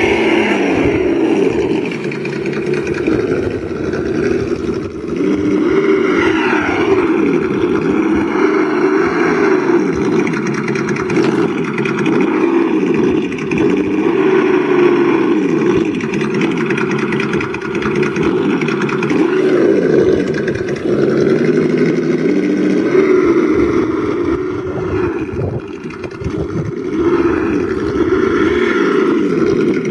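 Axial Bomber RC rock crawler being driven, its engine sound kit and drivetrain running continuously, the engine note rising and falling in pitch over and over with the throttle.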